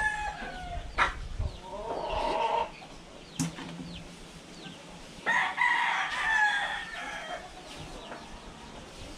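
Rooster crowing: a short call about two seconds in and a longer, falling crow from about five to seven seconds in, with a couple of sharp knocks between them.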